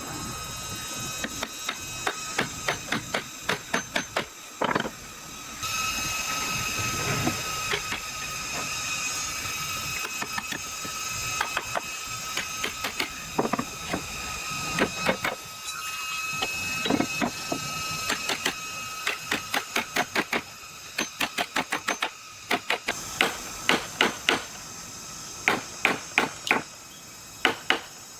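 Runs of sharp knocks or taps, about two to three a second, broken by short pauses, over a steady high hum and hiss, from woodworking on the tabletop.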